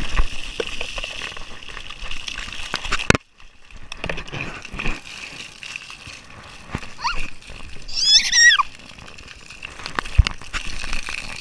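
Splash-park water jets spraying and splattering, a steady hiss with scattered drips and splats. About eight seconds in, a toddler gives a short, high, wavering squeal.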